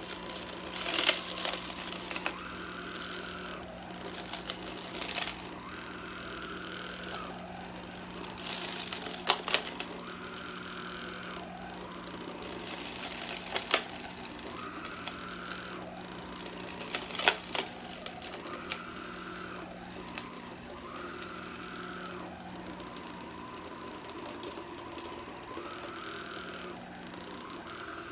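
Black & Decker 4.8 V cordless floor sweeper's motor running with a steady hum as it is pushed back and forth over carpet, a higher whine coming and going every few seconds with the strokes. A few sharp clicks as debris is swept up into the head.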